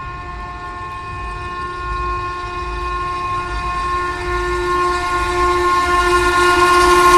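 Locomotive horn of the approaching Tejas Rajdhani Express held in one long unbroken blast, growing steadily louder as the train closes in at speed, with the low rumble of the train rising underneath.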